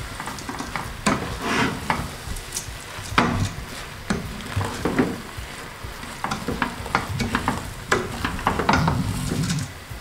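Wooden spoon stirring and scraping rice through a spiced tomato paste in a stainless steel pot, in irregular strokes, with the paste sizzling on the heat underneath. This is the rice being coated in the paste before the water goes in.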